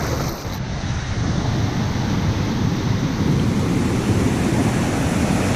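Steady rush of fast-flowing river water in a pool just below a waterfall, an even, low-heavy noise with no distinct events.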